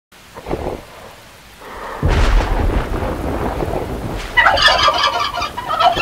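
Thunder rumbles over rain, with a first short peal and then a longer, louder rumble from about two seconds in. Just past the middle, a turkey gobbles loudly: a fast rattling call lasting about two seconds.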